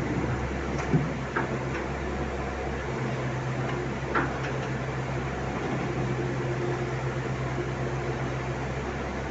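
Heavy digging machinery's engine running steadily with a low hum, with a few sharp knocks about a second in and again about four seconds in.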